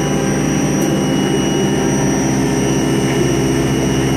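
Haas CNC vertical mill cutting a circular pocket with an end mill under flood coolant: a steady spindle whine and cutting noise with the hiss of coolant spray, unchanging throughout.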